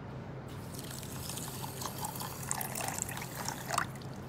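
Water poured from a jug onto sugar in a small stainless steel saucepan, splashing and trickling, starting about half a second in. It is the start of a simple sugar syrup of roughly equal parts sugar and water.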